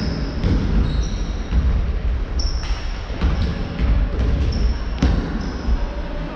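Basketball game on a hardwood gym floor: the ball bouncing a few times and rubber-soled shoes squeaking in short high squeals, over the low rumble of play in a large hall.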